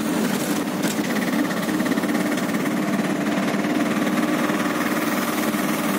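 Engine of the vehicle carrying the camera running steadily, heard from inside as a continuous drone with a fast, even rattle.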